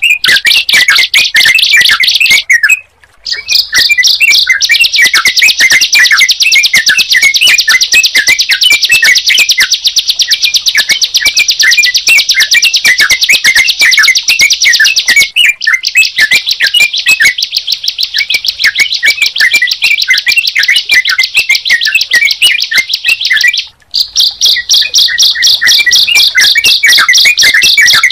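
Looped recording of ciblek (a prinia) and trucukan (yellow-vented bulbul) song mixed together: a rapid, nonstop high trill with short chirps just below it. It breaks off briefly twice, about 3 seconds in and near the end, as the loop restarts.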